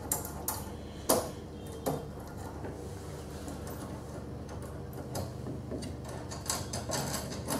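Scattered clicks and light knocks of a steel smooth rod and printed plastic parts being handled, as the rod with its LM8UU linear bearings is forced down into a tight printed bar clamp, over a low steady hum.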